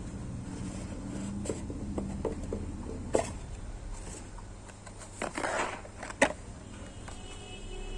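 Cardboard smartwatch box handled by hand: scattered light taps and clicks, a sliding scrape of cardboard about five seconds in, then a sharp snap, the loudest sound, as the lid is worked. A steady low hum runs underneath.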